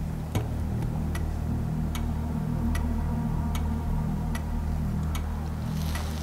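Background news music bed: a low steady drone with a sharp clock-like tick about every 0.8 seconds.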